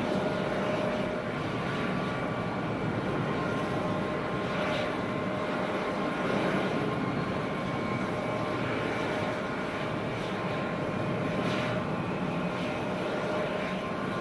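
Airbus A350-900's Rolls-Royce Trent XWB turbofans running at low taxi power as the airliner taxis, a steady rushing hum with several steady whining tones over it.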